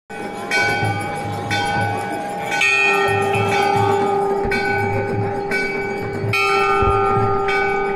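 Hindu temple bells rung for aarti, struck about once a second, with each strike ringing on over a steady hum of earlier strikes.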